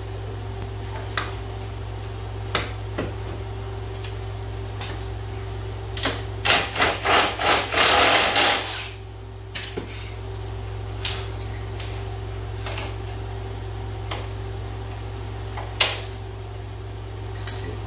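Hand tools working metal on an ATV's front suspension: scattered clicks and clinks, then about six seconds in a run of loud, quick scraping and ratcheting strokes lasting about three seconds. A steady hum runs underneath.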